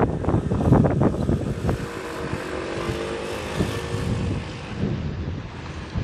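Wind buffeting the microphone, then an engine passing by with a steady hum from about two seconds in until about five seconds in, its pitch sinking slightly as it goes.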